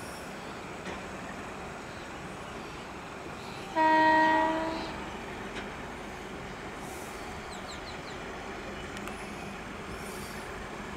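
An Indian Railways WAG-7 electric freight locomotive sounds one horn blast, about a second long and fading at its end, about four seconds in, over the steady background noise of the approaching freight train.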